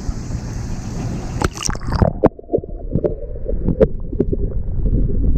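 Water splashing as a largemouth bass is released, then, about two seconds in, the sound turns abruptly muffled, heard through an underwater camera: low gurgling with scattered small knocks.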